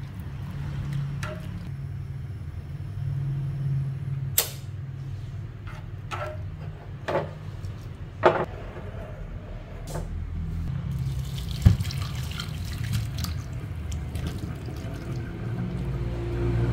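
Squid rings simmering in a saucepan of water, stirred with wooden chopsticks that knock sharply against the pan about half a dozen times, over a low steady hum. Near the end the water is poured off over a wicker basket in a steel sink.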